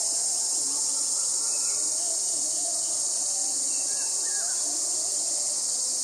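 Insect chorus: a steady, high-pitched drone that does not let up, with faint wavering calls and short chirps of birds behind it.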